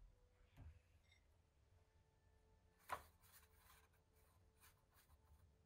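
Near silence: room tone, with one sharp click about three seconds in and a few faint ticks around it.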